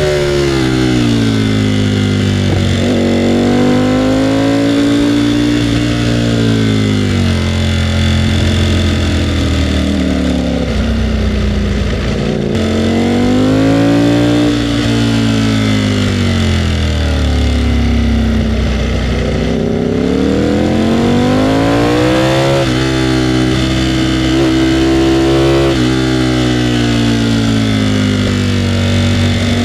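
Ducati Panigale V4R's 998 cc V4 engine under way, its pitch climbing and falling again and again as the rider accelerates and backs off. There is a quick gear change near the middle and two more near the end.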